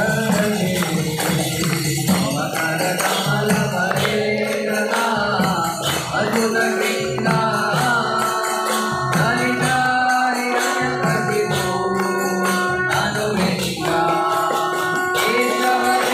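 Live devotional kirtan: voices singing with long held notes over jingling metallic percussion.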